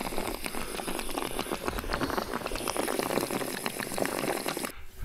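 Water being poured into the Škoda RTO fire truck's engine to fill its cooling system, a steady splashing gurgle that stops abruptly near the end.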